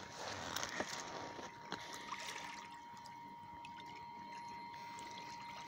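Water sloshing and trickling as a moose swims against the side of a small boat, with a few light knocks in the first couple of seconds, then softer and steadier.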